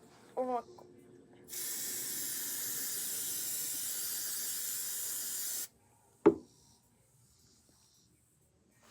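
Aerosol hairspray can spraying in one steady hiss for about four seconds, then stopping abruptly; a single sharp knock follows shortly after.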